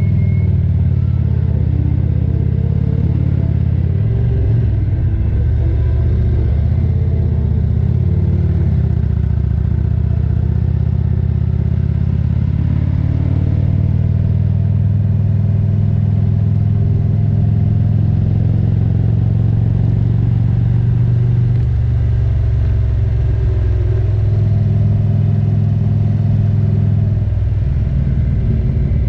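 A 2023 Indian Roadmaster's air-cooled V-twin engine runs at road speed, heard from on board the motorcycle. Its low note shifts in pitch a few times as the throttle is eased and opened through the bends.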